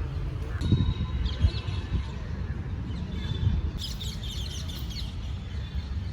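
Small birds chirping in quick, short high calls, a few about a second in and a dense flurry about four seconds in, over a steady low rumble.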